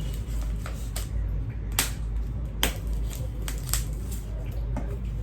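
Hands opening a parcel's packaging: a string of scattered sharp clicks and crackles, two of them louder in the middle, over a steady low hum.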